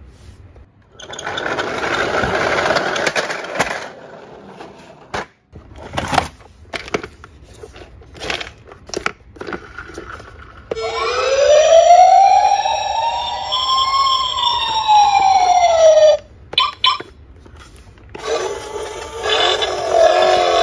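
Plastic toy vehicles rattling and clicking against each other in a cardboard box as they are handled. About halfway through, a battery-powered toy police car plays its electronic siren: one smooth wail that rises and falls over about five seconds. Another wavering electronic sound effect starts near the end.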